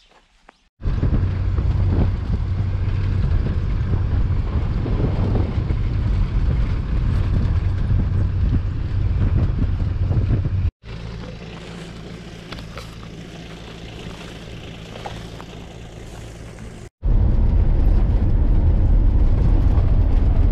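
Off-road safari vehicle driving on a dirt track: a steady low engine and road rumble with wind buffeting the microphone. Sudden cuts about a second in, near the middle and a few seconds before the end switch between this loud rumble and a quieter steady engine hum.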